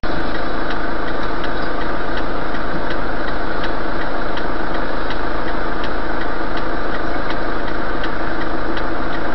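Vehicle engine running steadily, loud and even throughout, with a faint light ticking repeating about three times a second.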